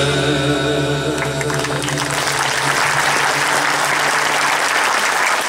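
The backing track's final held chord rings on while the audience breaks into applause about a second and a half in. The applause swells and carries on after the music dies away.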